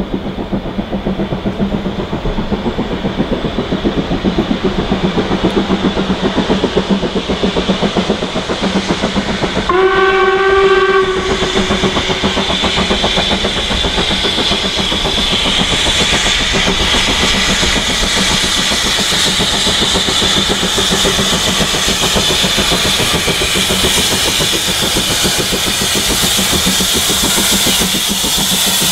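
LMS Ivatt Class 4 2-6-0 steam locomotive No. 43106 approaching under steam, with a fast, steady beat from its exhaust. It gives a short whistle about ten seconds in. A hiss of escaping steam grows as it draws near: steam blowing from a brittle, cracked snifter valve gasket.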